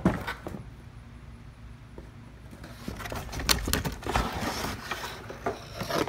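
Cardboard boxes holding electric radiator fans being handled and opened by hand: scattered knocks, scrapes and rustles, sparse at first and busier over the last three seconds.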